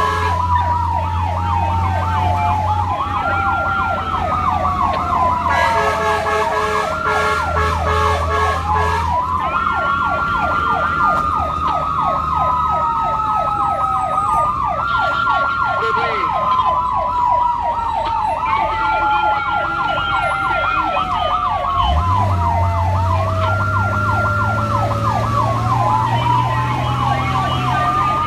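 Electronic emergency-vehicle sirens of a fire and rescue unit responding to a fire alarm: a slow wail that climbs, holds and falls over several seconds, layered over a fast repeating yelp. Beneath them is a low vehicle engine hum that rises in pitch about three-quarters of the way through.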